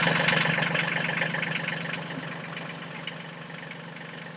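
Tractor diesel engine running with a steady clatter, growing gradually quieter over the few seconds as the tractor backs away.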